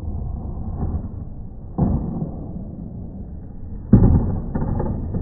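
Skateboard wheels rolling on asphalt, with a sharp clack about two seconds in and a louder clack about four seconds in as the board hits the curb and scrapes along its edge, followed by another knock half a second later.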